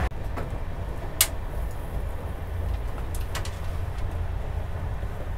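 Steady low rumble of a moving passenger train heard inside the coach, with a few sharp clicks, the loudest about a second in.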